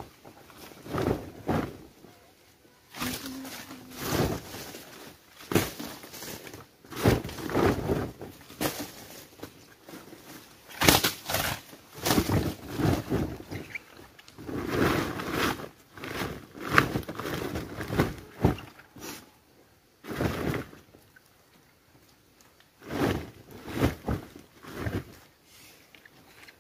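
Peeled bamboo shoots being picked up by hand and packed into woven plastic sacks: irregular clunks of the shoots knocking against one another, mixed with rustling of the sack, in uneven bursts with short pauses.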